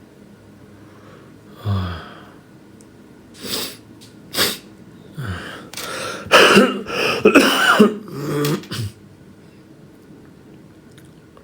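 A man coughing: a few single coughs, then a longer fit of coughing and throat clearing from about six to nine seconds in. It is a smoker's cough brought on by smoking.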